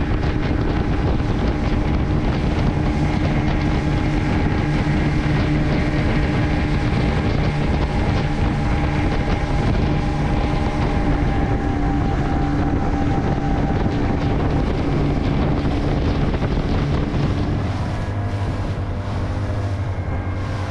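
Fishing boat's engine running under way with a steady note, with wind buffeting the microphone. Near the end the engine note drops lower and a little quieter.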